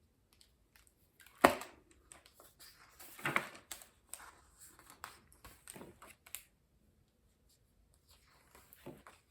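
Paper rustling and soft clicks as a book's pages are handled and turned, with one sharp tap about a second and a half in.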